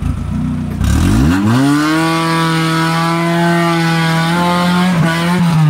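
Maruti Gypsy 4x4's engine revving hard under load as it climbs a steep mud slope. The pitch rises over about a second, holds at high revs for several seconds, and begins to drop just at the end.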